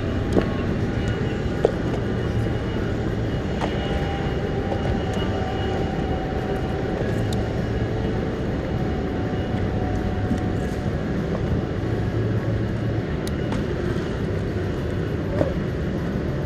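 Steady low rumble of wind buffeting the microphone on an open boat, swelling now and then, with a few faint clicks.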